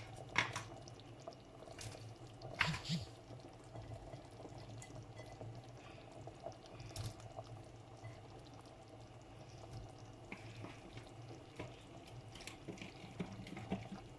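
Liquid sloshing and dripping in a pot as pieces of meat are added to palm nut soup, with a few sharp clinks, the clearest about 2.7 s in, over a faint steady hum.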